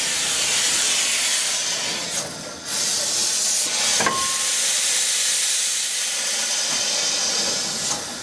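Steam locomotive venting steam low at its side, a loud steady hiss that dips briefly about two seconds in, with a sharp click about four seconds in.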